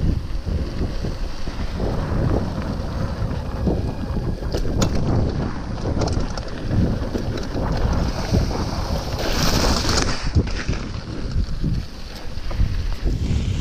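Wind buffeting the microphone of a camera riding along on a mountain bike on a dirt trail, a steady low rumble with scattered clicks and rattles from the ride. A brief louder hiss comes about nine seconds in.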